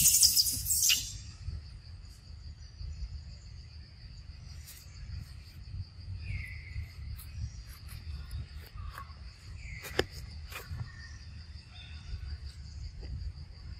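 Steady, high-pitched insect chorus, with a loud noisy burst in the first second, a couple of short chirps, and a sharp click about ten seconds in.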